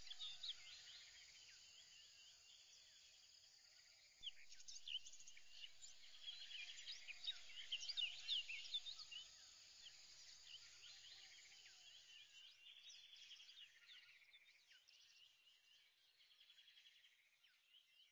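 Faint chorus of small birds chirping and twittering in many quick, overlapping calls, busiest a few seconds in and slowly fading out toward the end.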